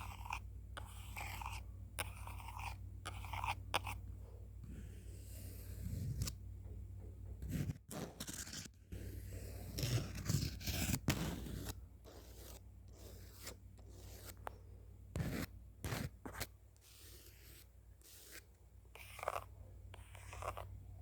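ASMR sketching sounds: many short, irregular scraping strokes of a drawing tool close to the microphone.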